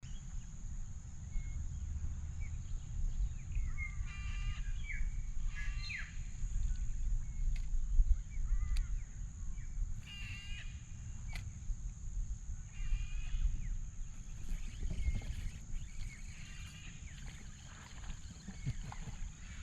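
Bird calls, a handful of short calls spread a few seconds apart, over a steady low rumble like wind on the microphone.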